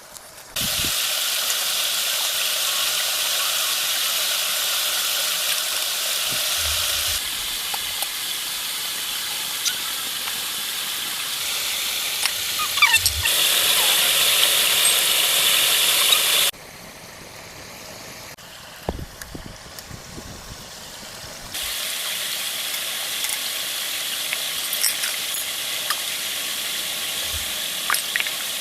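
Steady rain falling, a even hiss with faint scattered ticks of drops. The level jumps up and down abruptly several times, dropping to a much quieter stretch in the middle.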